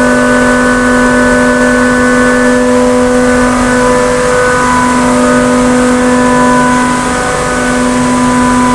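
Loud, steady hum of chiller plant machinery running: several constant tones over a rushing noise, dipping slightly about seven seconds in.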